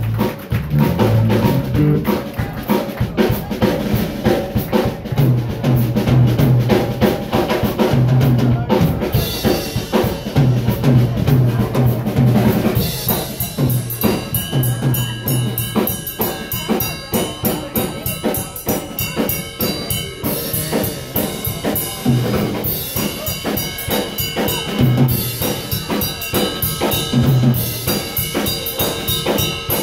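Live blues band playing: drum kit keeping a steady beat with bass drum and snare, electric bass and electric guitars. The music gets brighter and busier about twelve seconds in.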